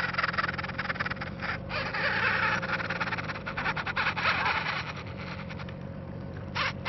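Fishing reel's drag giving out line in a fast run of clicks as a large fish pulls against the bent rod, easing off about five and a half seconds in, over a low steady hum.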